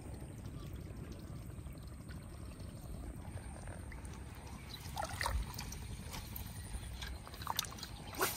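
Shallow marsh water sloshing and splashing around a wading angler, over a low wind rumble. From about five seconds in come a few short, sharp splashes and crackles, the sharpest as the fishing rod is swung up for a cast near the end.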